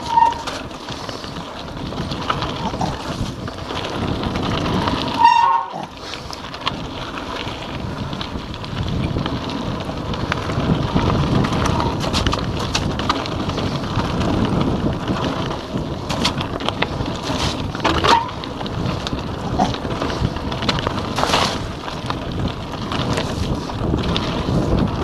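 Giant Anthem 2 27.5 cross-country mountain bike ridden fast down a wet, rocky trail: tyres rolling and the bike rattling over stones, with a steady rush of wind on the microphone. Sharp knocks come at hits, the hardest about five seconds in, followed by a brief dropout.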